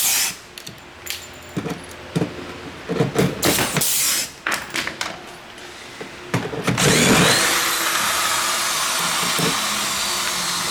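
Sharp clicks and knocks of hand riveting work on a flight case. About seven seconds in, a power tool starts and runs steadily with a loud hiss.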